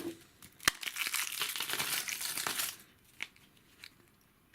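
A sharp click, then about two seconds of crinkling and crumpling as the foil wrapper of a chocolate surprise egg is unwrapped, followed by a few small clicks.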